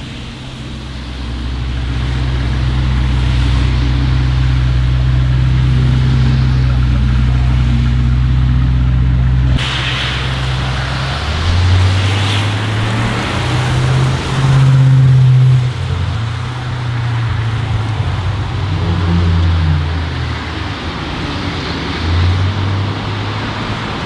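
Exhaust of an ABT Audi RS6-R C8's twin-turbo V8 with its particulate filter deleted: a steady, deep low drone as the car rolls by for about the first ten seconds. It then changes to shorter bursts of revving and throttle, rising and falling in pitch, with the loudest burst around the middle.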